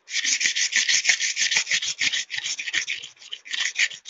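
The blade of a large, old, rusty pair of scissors is rubbed rapidly back and forth on wet black abrasive paper, a fast gritty rasping at about seven strokes a second, as the blade is sharpened and scoured clean of rust.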